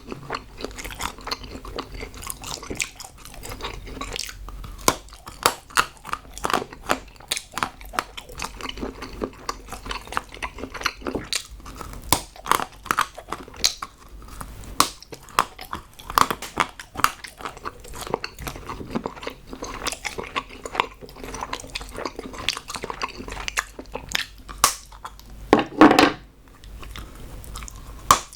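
Close-miked chewing and crunching of chocolate, a dense run of irregular crunchy clicks. About two seconds before the end comes one louder, short sound.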